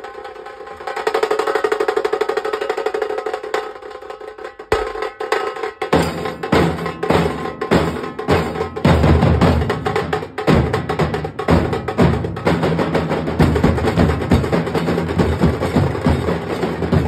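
Nasik dhol drumming. After a few seconds of a held pitched sound with light taps, the drums come in hard about five seconds in and keep up a fast, loud, driving beat.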